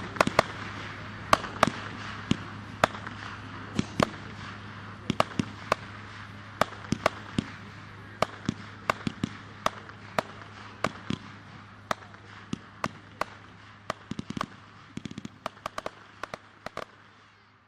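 "Air Raid" consumer firework burning with a steady hiss that slowly fades, broken by sharp cracks at uneven intervals, about one or two a second. The cracks come thicker near the end, then all of it stops abruptly.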